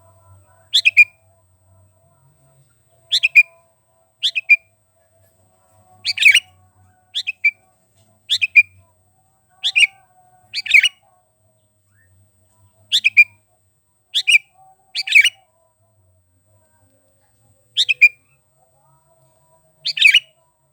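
Sooty-headed bulbul (kutilang) giving short, sharp chirping calls, about a dozen of them, often in quick pairs, spaced a second or two apart.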